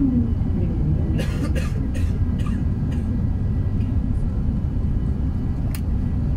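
Steady, deep cabin rumble of an Airbus A380 in descent, heard from a window seat over the wing: airflow and its Rolls-Royce Trent 900 engines. A falling whine dies away at the very start, and a few faint clicks and one sharp click near the end come over the rumble.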